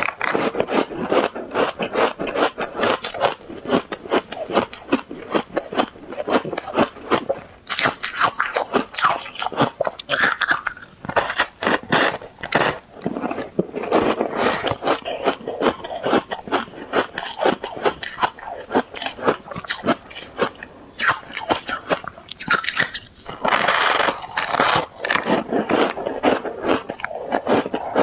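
Ice being bitten and chewed close to the microphone: rapid, continuous crunching and crackling of ice breaking between the teeth.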